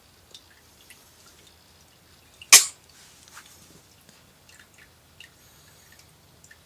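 A single short, sharp sneeze about two and a half seconds in, with faint small clicks scattered around it.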